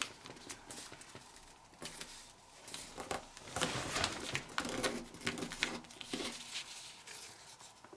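A sheet of printer paper rustling and crinkling as it is folded and creased by hand, in short, irregular scrapes.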